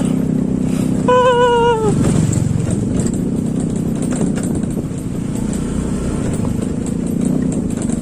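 Honda Click scooter engine running steadily while riding over rough ground, with road and wind noise. About a second in, a short higher-pitched tone sounds briefly over the engine.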